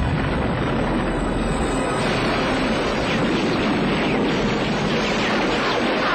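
Film soundtrack: music under a steady, dense din of action sound effects.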